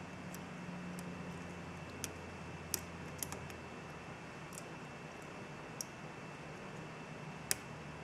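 Metal lock picking: a flag pick and tension wrench working the pin stacks of a Mul-T-Lock Interactive padlock cylinder, giving a handful of sharp, irregular clicks about a second apart over a faint steady hum.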